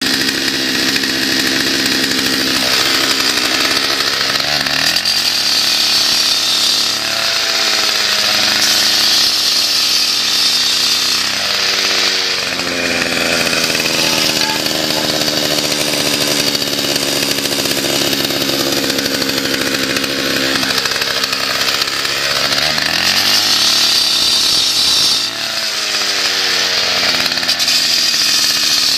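Cut-off saw running at high revs while it cuts crack control joints into concrete, with a steady, hissing cutting sound. The engine note sags and climbs back several times as the blade bites and eases off.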